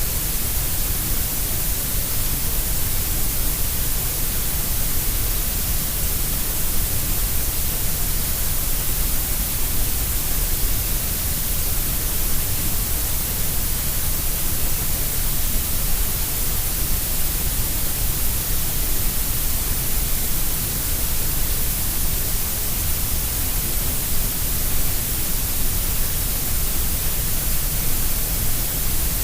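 Grey noise: a steady, unchanging hiss of synthesized noise, shaped to sound equally loud at all pitches, so it carries more of its energy in the deep lows and the highs than in the middle.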